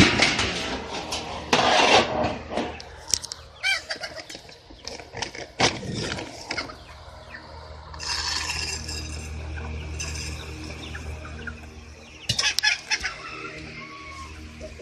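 Chickens clucking around scattered feed, with several loud calls near the start, in the middle and toward the end, over a steady low hum.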